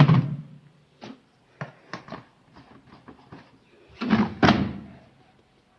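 Knocks and thumps of a Samsung automatic washing machine being handled while detergent is added and the machine is closed up: a loud knock, a few light clicks, then two heavy thumps about four seconds in.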